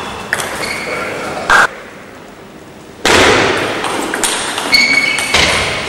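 Table tennis ball clicking sharply off the paddles and table during a rally, then crowd applause and cheering breaking out suddenly about three seconds in.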